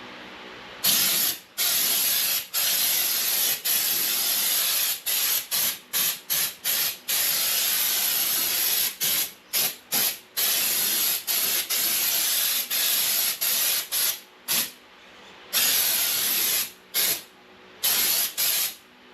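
Compressed-air spray gun hissing in many on-off bursts as the trigger is squeezed and released, spraying Raptor protective coating onto a car's underside. The bursts start about a second in; a few last a second or more and most are shorter, broken by brief gaps.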